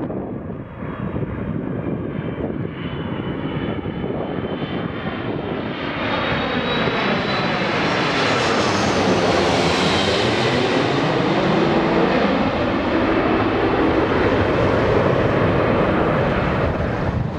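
Airbus A330-300 airliner on final approach with gear down, passing low overhead: its jet engines give a high whine that falls in pitch as it goes by. The engine noise grows louder about six seconds in and stays loud, then eases near the end as the plane moves away.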